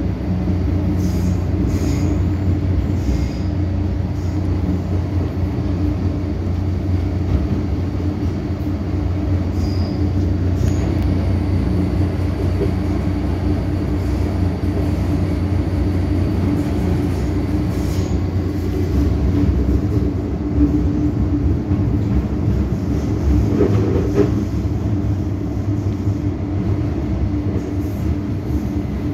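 MTR M-Train metro train running in a tunnel, heard from inside the car: a steady rumble of wheels on rail with a low motor hum and a few light clicks, as it comes into a station.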